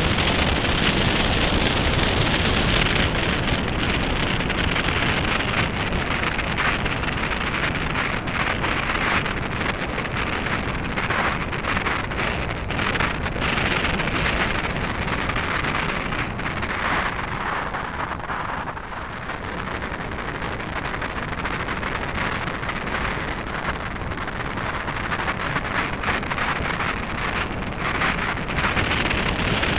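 Wind buffeting the microphone over the crackle of mountain-bike tyres rolling on a gravel track, with small knocks and rattles from bumps. The noise eases briefly a little past the middle.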